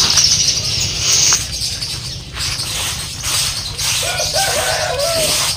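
Soaked paddy rice grains rustling and pattering as they are scooped by hand off a plastic tarp and poured into a woven sack. A bird calls with a wavering note about four seconds in.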